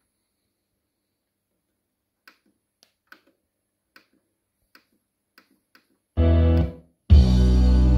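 Several faint clicks of a disc player's front-panel buttons as tracks are skipped, then about six seconds in, music starts over the hi-fi, drops out for a moment and comes back in, decoded by a Teac DAC from the player's coaxial digital output.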